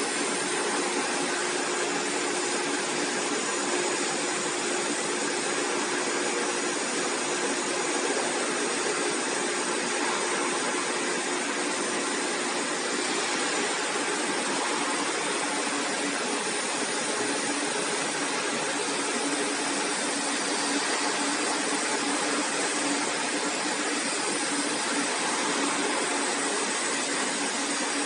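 MISSILECNC M5S flatbed CNC cutter with an oscillating knife running while it cuts shapes from a sheet. A steady, even, blower-like noise with a faint low hum that holds without a break.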